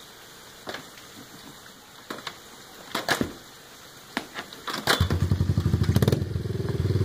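A few scattered clicks and knocks, then about five seconds in a Honda XR50's small single-cylinder four-stroke engine comes in suddenly and runs loud with a rapid, even firing beat.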